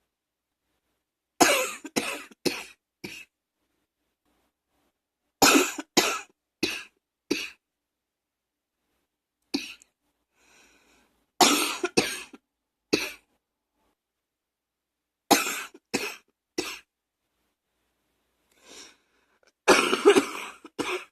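A person coughing in repeated fits, mostly three or four harsh coughs in quick succession, with pauses of a couple of seconds between fits. It is an allergy cough, as the uploader puts it.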